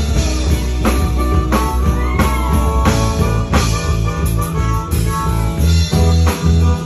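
Live band playing an instrumental passage of an original song on electric bass, drum kit, acoustic guitar and electric guitar, with a steady drum beat and bending guitar lines.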